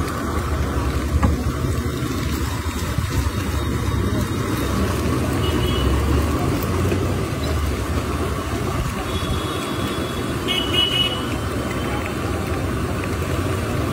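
Steady street traffic rumble, with short vehicle horn toots about halfway through and again about three-quarters of the way through.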